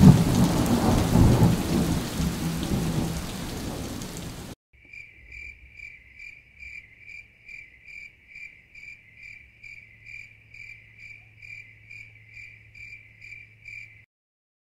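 Thunder rumbling over heavy rain, fading and then cutting off about four seconds in. Then a cricket chirping in an even rhythm, about two and a half chirps a second, until it stops near the end.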